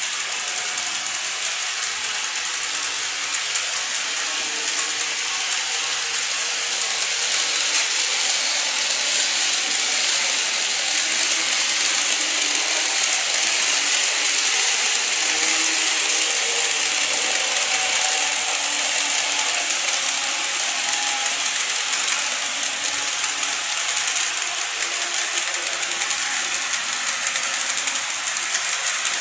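Model of a Seibu 30000 series train running along the layout track: a steady mechanical rattle and whir of its wheels and running gear on the rails, a little louder in the middle.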